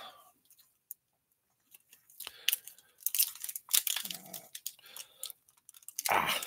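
Foil wrapper of a 2019-20 Upper Deck MVP hockey card pack being picked at and torn open by hand. After about two seconds of near quiet, it gives a run of crinkles and short rips; this wrapper is tough to open.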